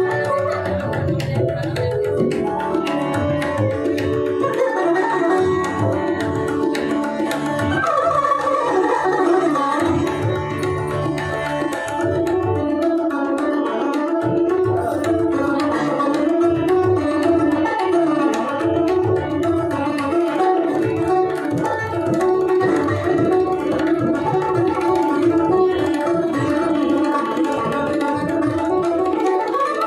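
Sitar and tabla playing together in Indian classical style: a sitar melody with sliding notes over steady tabla strokes, including deep, booming bass-drum (bayan) beats.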